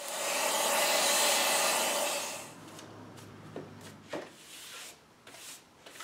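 A loud, steady rushing noise with a low hum for about the first two and a half seconds, then dies away. After it come softer brushing and rubbing strokes as a hand brush sweeps over the glass and wooden frame of a door on the bench.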